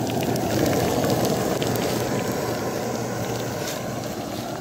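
Chicken lollipops deep-frying in mustard oil in an open pan during their first fry: a steady sizzle with fine crackles.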